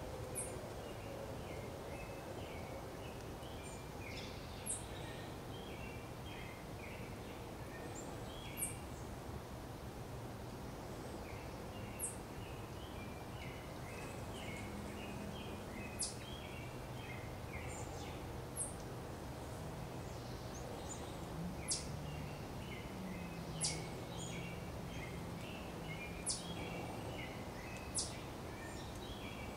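Wild birds calling: a very high, thin note that slides down sharply, repeated every two to four seconds, over softer scattered chirping.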